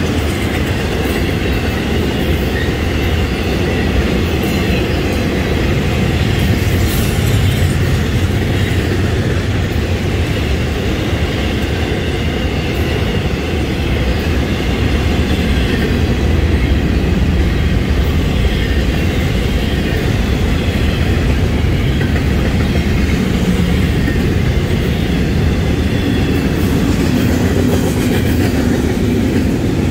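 Florida East Coast Railway intermodal freight train passing: its well cars, loaded with truck trailers and double-stacked containers, roll by with a steady rumble of steel wheels on the rails.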